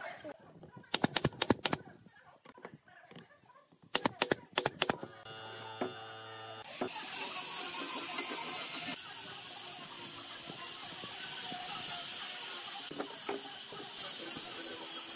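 Two quick runs of sharp clicks, then an electric angle grinder runs free with a steady hum before its disc meets the wood. From then on there is a steady hiss as the grinder sands the stool's end-grain wooden top.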